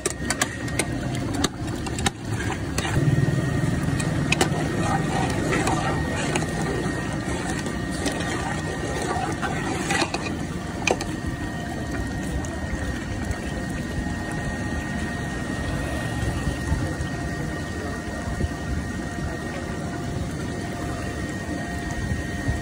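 Steady rushing of a gas burner under a large aluminium pot of lentil and gourd curry at a boil, with a few sharp clicks.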